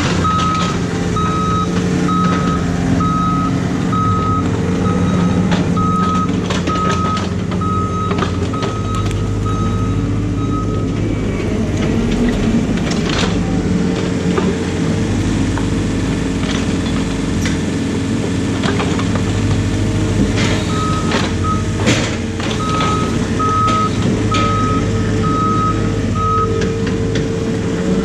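Excavator's diesel engine running under load while its warning alarm beeps over and over. The beeping stops about eleven seconds in and starts again near twenty-one seconds, with scattered knocks and clunks of the bucket working among rocks.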